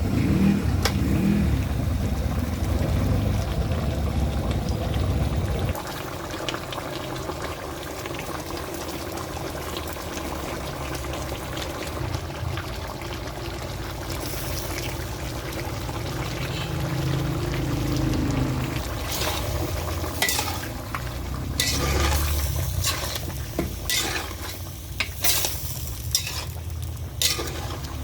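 Food sizzling and frying in a pan, with a low rumble for the first few seconds. In the second half a metal utensil stirs, repeatedly scraping and clicking against the pan.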